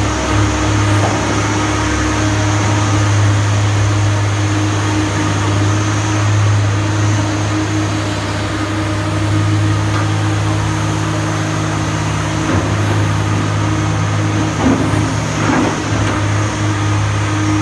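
Komatsu PC300LC telescopic excavator's diesel engine running steadily, a constant low drone with a steady hum above it.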